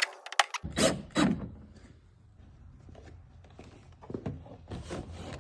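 Clicks, knocks and rubbing from parts being handled on a truck's door: the door trim and speaker hardware. Two sharp knocks come about a second in, then lighter scattered taps, with a cluster of rubbing and clicks near the end.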